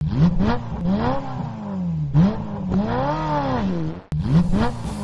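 Car engine sound effect revving unevenly, its pitch rising and falling in repeated swells. The clip cuts off about four seconds in and starts over.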